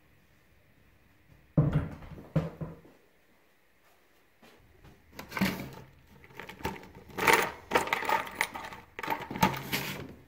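Two heavy thumps, then small metal parts (coil springs, a ball bearing, bolts) rattling and clinking in a plastic tub as they are stirred and picked out by hand.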